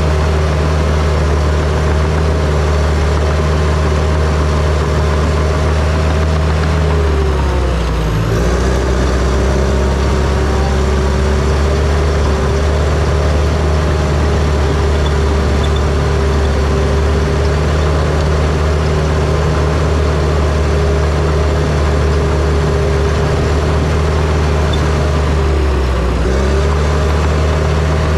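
Crawler dozer's diesel engine running steadily at working speed. The engine note dips briefly and comes back up twice, about eight seconds in and again near the end.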